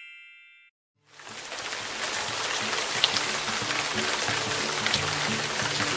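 A bell-like chime fading out, a moment of silence, then from about a second in a steady rain-like hiss of granules pouring, with a low pulsing beat underneath.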